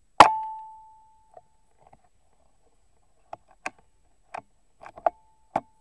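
Air rifle firing: a sharp shot with a ringing tone that fades over about a second. From about three seconds in come a string of clicks and clacks, one with a short ring, from the rifle's action being worked to reload.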